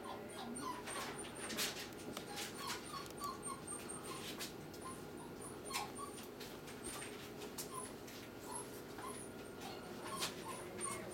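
A dog whimpering in short, high squeaks, again and again at an uneven pace, with a few faint clicks between them.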